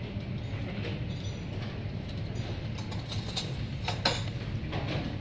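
Dining-room background of a revolving restaurant: a steady low hum, with a few short clinks of tableware in the second half.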